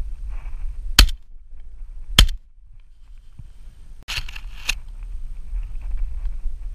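Two shotgun shots about a second apart, then a couple of seconds later a short clatter of clicks as the gun is handled; wind rumbles on the microphone throughout.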